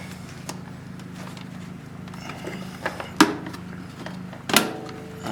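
Scattered clicks and two sharp knocks, about three and four and a half seconds in, as the air cleaner is worked loose and pulled out of an ATV's frame, over a steady low hum.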